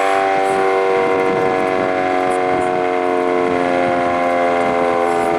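Sentry 7V8 outdoor warning siren sounding loudly, a steady multi-tone wail holding one pitch.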